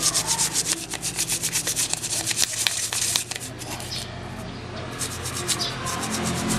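Brisk scrubbing of a printer circuit board, rapid back-and-forth rubbing strokes several times a second. About halfway through, the strokes become slower and lighter.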